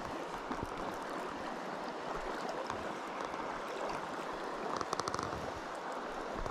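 Small creek running steadily, with a short patch of faint clicking about five seconds in.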